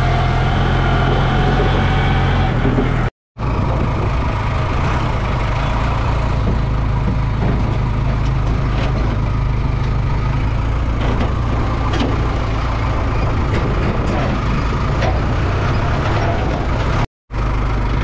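Farm tractor's engine running steadily under a driver at the wheel, with a low, even drone. The sound cuts out for a split second twice.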